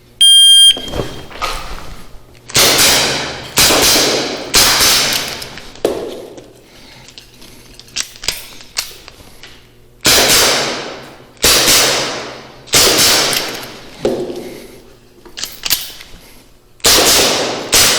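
A shot timer's short high beep gives the start signal, then an airsoft revolver fires about ten shots in quick groups, each with a ringing tail. Between about six and ten seconds in there is a pause filled only with small clicks before the firing resumes.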